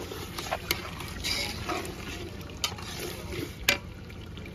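A slotted metal spatula stirring thick chicken curry in a large metal cooking pot: soft wet scraping, with three sharp clinks of the spatula against the pot.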